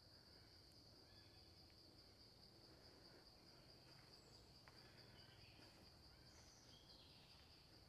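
Faint, steady high-pitched drone of insects, with a few brief faint bird chirps.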